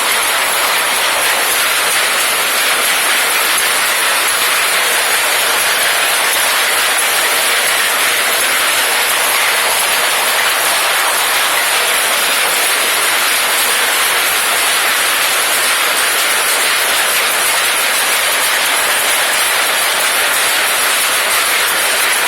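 A steady, unchanging hiss of noise, spread evenly from the middle to the very top of the range with no clicks, rhythm or pitch in it.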